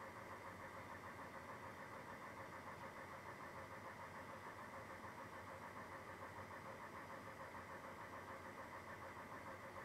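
Faint, steady machine-like hum with a regular pulse of about three beats a second, unchanged throughout.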